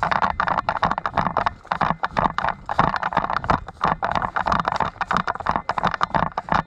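Hurried footsteps with gear rattling and knocking: a dense, irregular clatter that starts suddenly.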